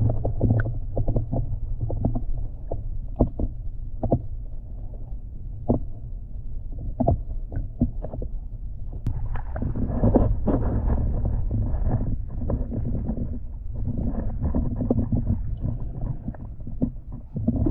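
Canoe being paddled: paddle strokes and water sloshing against the hull, with scattered short knocks and clicks and a steady low rumble underneath.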